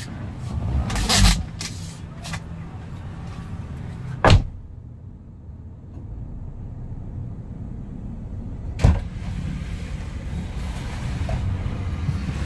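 Vehicle engine running steadily at low speed, with three sharp knocks spread through it, the loudest about a second in.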